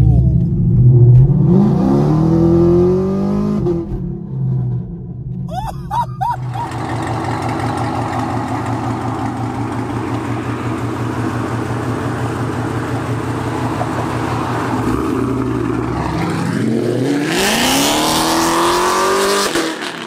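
A 2021 Chevrolet Camaro 1LE with an AWE Track Edition axle-back exhaust, catless long-tube headers and an X-pipe, accelerating in a short pull, its exhaust note rising in pitch as it is heard from inside the cabin. After a brief break the engine runs steadily, and near the end it revs up again in a second loud rising pull, heard from outside the car.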